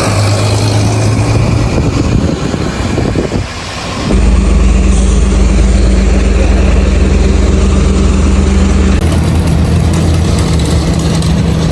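Heavy construction machinery engines running with a steady loud drone. About four seconds in, a deeper, louder engine rumble sets in, and it eases back about five seconds later.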